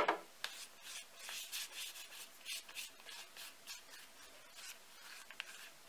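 Floury hands rubbing and wiping the inside walls of a plastic mixing bowl, scraping sticky bread dough off with flour: a sharp tap at the start, then a run of short, irregular brushing strokes.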